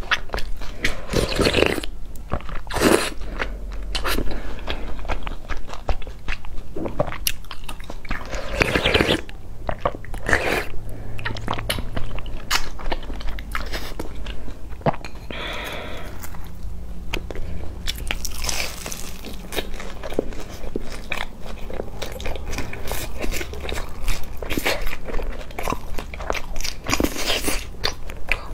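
Close-miked eating: slurps of soup from a bowl and crisp bites and chewing of a fried cake, many small sharp crunches between longer slurping rushes.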